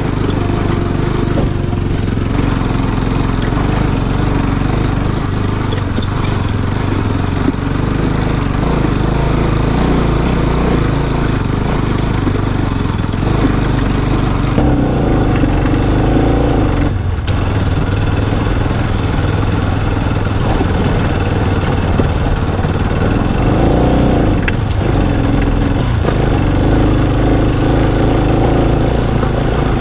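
Motorcycle engine running while riding, over a steady rushing noise; the engine pitch rises and falls about halfway through and again a few seconds later.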